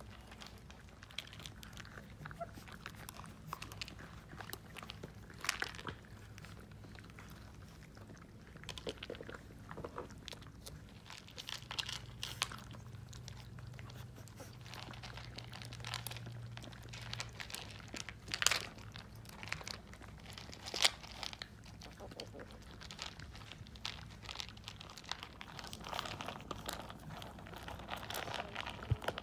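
A litter of boxer puppies eating dry kibble together. There are many irregular small crunches and clicks as they bite and chew.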